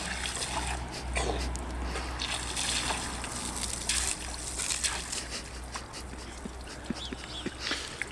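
Water trickling and splashing in a water-filled trough as a garden hose sprays into it and a person sits and moves in the water, with irregular small splashes throughout.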